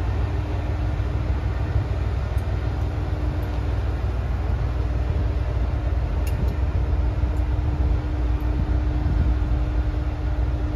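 ET122 diesel railcar's engine running as the train creeps toward the platform: a steady low rumble with a constant hum over it, and a few faint clicks about six seconds in.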